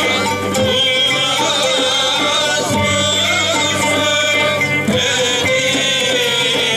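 A Turkish ilahi, a devotional hymn, sung by a male chorus to oud, ney and frame drums, with a wavering, ornamented melody that carries on without a break.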